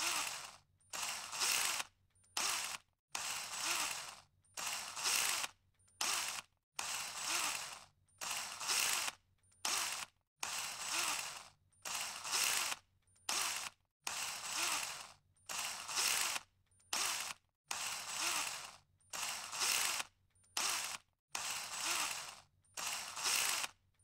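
Small cordless power drill triggered in about twenty short bursts, a little under one a second, its motor and gearbox whirring briefly each time with silence between.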